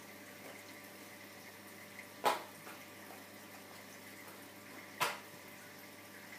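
Steady water-flow hiss and faint hum of reef aquarium equipment, broken twice by a sharp click, about two seconds and five seconds in.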